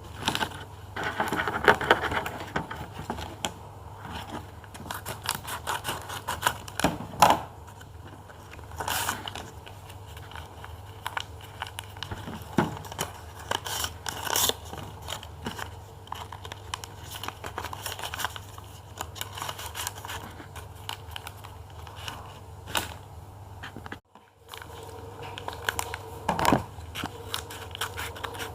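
A blind bag being handled and opened: irregular crinkling, scraping and tearing with scattered sharp taps, over a steady low hum. The sound cuts out briefly near the end.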